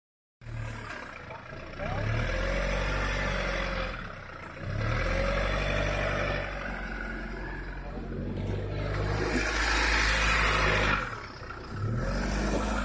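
Kia Sorento SUV's engine revving under load as it climbs a loose dirt slope, swelling and easing off in several surges.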